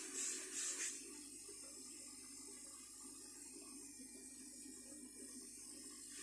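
Water running, as from a tap: a louder, pulsing hiss for about the first second, then a fainter steady flow.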